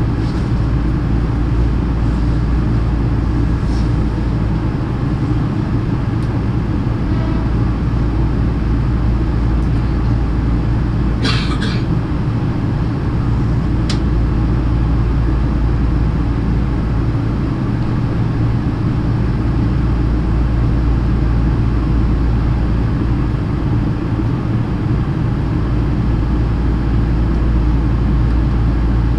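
Steady low hum of a stationary Hankyu electric train, its onboard equipment running while it stands still. A short hiss comes about 11 seconds in, and a faint click about 14 seconds in.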